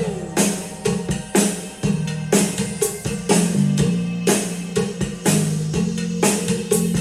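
Instrumental music with a steady drum-kit beat, bass line and guitar, played through a pair of powered desktop speakers.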